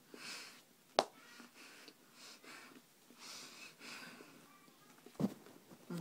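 Noisy breaths in and out through the nose while chewing a mouthful of dry crackers, several puffs a second or so apart. A sharp click about a second in and a dull thump near the end.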